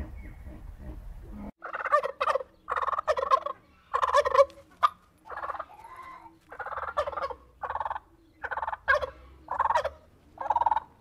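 Domestic turkey tom gobbling over and over: about a dozen short, rattling gobbles in quick succession, starting about a second and a half in.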